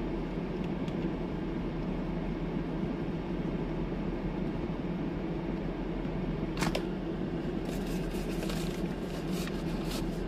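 Steady low hum inside a parked, running car's cabin, with a sharp click about two-thirds of the way in and a run of small clicks and taps near the end.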